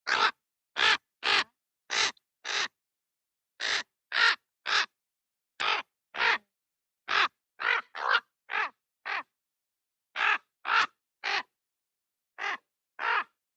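Raven cawing up close: about twenty short caws in quick runs of two to five, roughly two a second within a run, with brief silences between the runs.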